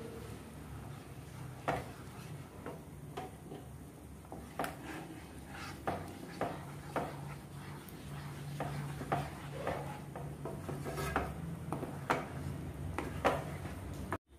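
Wooden spatula scraping and knocking against the inside of a kadai as thick masala paste is stirred: irregular short scrapes and taps, about one or two a second, over a steady low hum.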